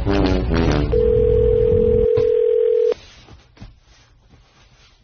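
Telephone ringback tone: one loud, steady tone for about two seconds that cuts off suddenly, as an outgoing call rings through. Before it, in the first second, a song with singing is still playing.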